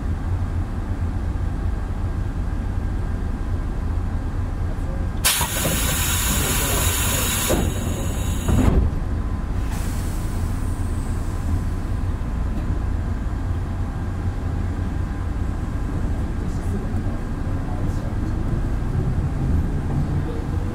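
Inside a Toyohashi Railway 1800 series electric train: a steady low rumble, broken about five seconds in by a loud burst of compressed-air hiss lasting some three seconds. Near the end a motor whine begins and rises in pitch as the train accelerates.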